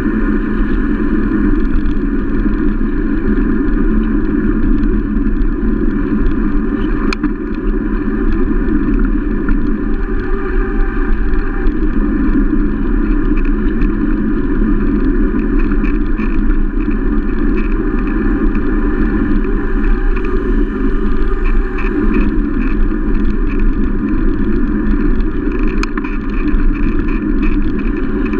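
Steady travel noise from a camera riding on a two-wheeler along an asphalt road: wind on the microphone and road rumble, unbroken, with a faint click about 7 seconds in and again near the end.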